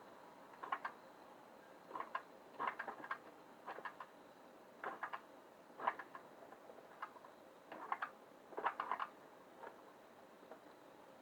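Wilesco D21 toy steam engine being started with condensate still in the cylinder: irregular faint clicks and spits about once a second, with no steady running beat yet.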